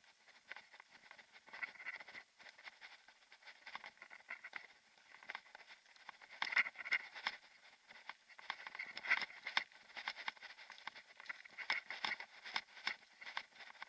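Mountain bike riding over a gravel forest track: an irregular clatter of clicks and knocks as the bike and its fittings jolt over the bumps, busier from about halfway through.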